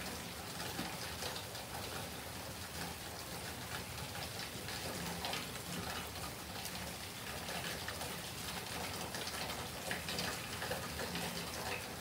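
Light rain and water dripping just after a heavy downpour has ended: a steady hiss dotted with many small drip ticks.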